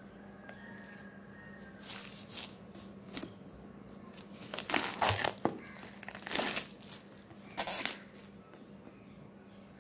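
Clear plastic shrink-wrap being peeled and torn off a cardboard phone box, crinkling in a series of bursts that are loudest about halfway through.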